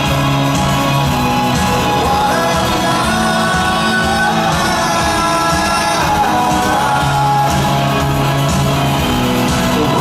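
Live rock band: a man singing over electric guitar, bass guitar and drums, with the echo of a large arena.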